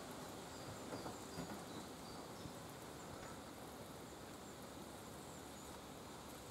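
Quiet woodland ambience with faint, high, short bird chirps repeating in the distance, and a few soft knocks in the first two seconds.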